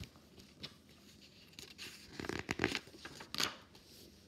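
Pages of a large hardcover picture book being turned and handled: a series of short paper rustles and soft clicks, the loudest about halfway through.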